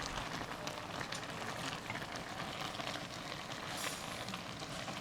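Rain falling steadily: an even hiss with many small, scattered ticks.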